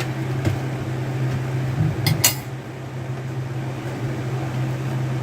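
Small hard clinks, two or three close together about two seconds in, as a laptop's screws, case parts and tools are handled during disassembly, over a steady low hum.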